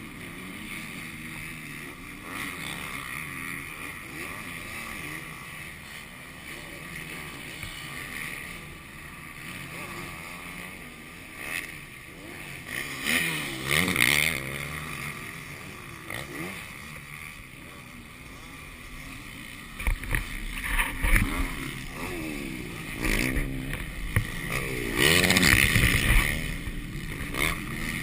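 Motocross dirt bike engines racing on a track, revving up and down in rising and falling whines as riders pass. The revving swells loudest about halfway through and again over the last several seconds.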